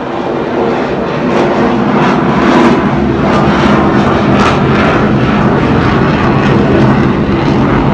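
Military airplane flying low overhead: a loud, steady engine drone that builds over the first couple of seconds and then holds.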